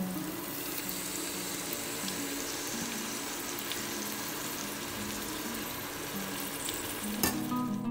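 Onion-tomato masala frying in oil in a steel pot, a steady sizzle as curd is spooned into it. A single sharp knock near the end.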